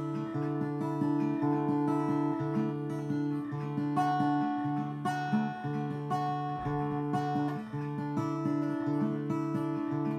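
Acoustic guitar being strummed and picked, notes sounding one after another and ringing on.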